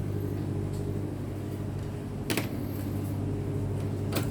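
A steady low hum runs throughout, with two short sharp clicks, one a little past halfway and one near the end.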